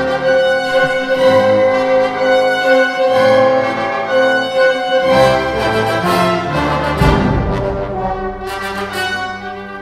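Symphony orchestra playing a classical suite: strings and brass hold long notes, with a sustained middle note for the first half. The low register grows fuller about seven seconds in.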